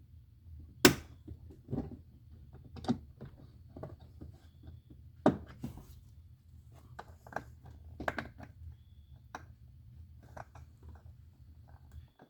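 Plastic car door trim panel being worked back onto the door: a string of sharp knocks, thunks and clicks as it is pushed and tapped into place, the loudest a little under a second in.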